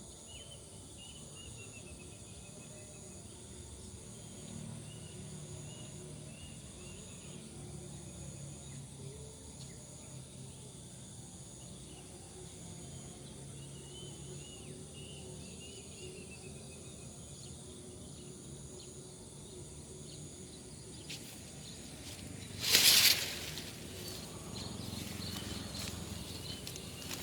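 Faint, repeated high chirping bird calls over steady outdoor background noise, broken about 23 seconds in by one short, loud burst of noise.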